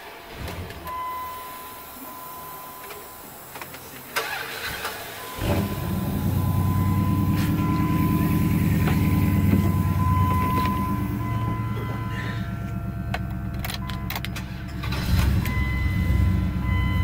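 Old Dodge truck engine cranked and started about five seconds in, then kept running with the gas pedal held, revving up a little near the end. The truck stalls as soon as the throttle is released, which the mechanic traces to a dirty throttle body and idle air control (AIS) stepper motor.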